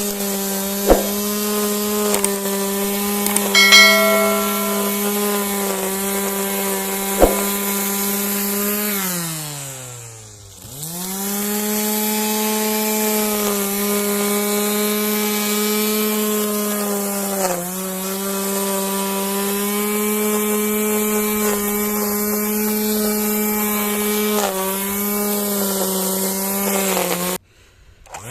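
Bosch EasyGrassCut 23 electric grass trimmer running with a steady motor whine. About nine seconds in it is released and spins down, then starts again and runs up to speed. Its pitch dips briefly twice later on, and the sound cuts off abruptly near the end.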